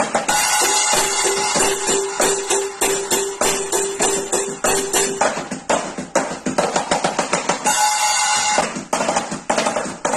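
A muted practice drum kit being played in a quick, steady groove: dense taps on its practice pads, with its cheap toy-grade cymbals clashing and ringing over them.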